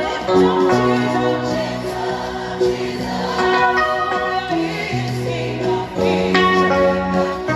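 Gospel worship music: voices singing long held notes in choir style over keyboard chords and a bass line, with the chords changing about once a second.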